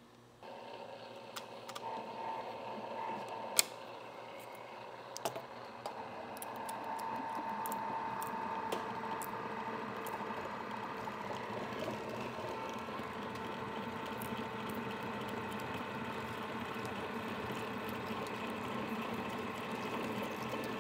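Arboga Maskiner radial drill turning a 1-3/8 inch twist bit at about 100 RPM, cutting into steel over a half-inch pilot hole: a steady grinding hum with scattered ticks. It grows louder about six seconds in as the bit bites fully, then holds steady.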